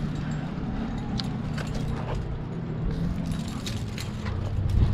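Climbing gear on a harness (carabiners and cams) clinking now and then as the climber moves up a rock crack, over a steady low engine drone.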